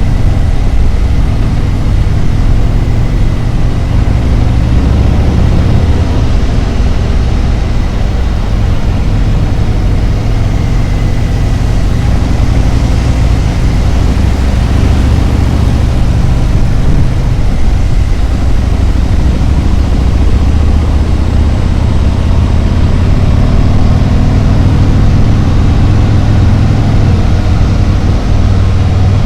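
Harley-Davidson Road Glide's V-twin engine running steadily on the road, a continuous low-pitched engine sound.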